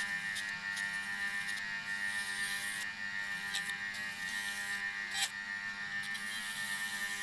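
Electric motor from a Sanyo water pump, rigged as a sharpener, running steadily with a high whine and a low hum. A hiss comes and goes every second or so, and there is a sharp click about five seconds in.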